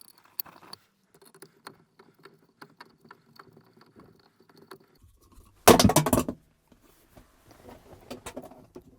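Small metallic ticks and scrapes of a screwdriver turning a Phillips-head screw into a gear knob on a gear lever, with a faint steady hum beneath. About six seconds in comes one short, loud burst of noise.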